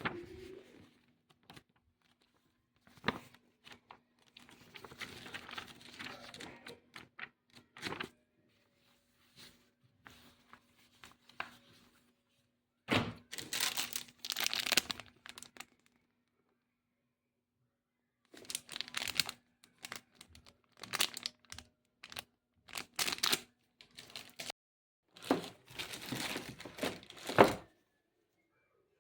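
Plastic packaging crinkling and tearing in irregular bursts as a rotary hammer and its parts are unpacked, with occasional knocks of parts being handled and set down.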